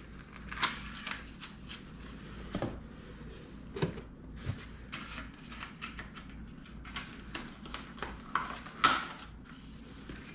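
Clicks, light knocks and rustles of a crossbow, its foam packing block and the cardboard box being handled during unpacking, with the sharpest knock near the end.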